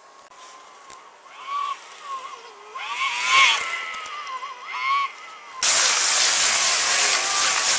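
Several short squeals that rise and fall, from an unclear source, over a faint night background. About two thirds of the way in, it cuts abruptly to the loud, steady noise of passing road traffic.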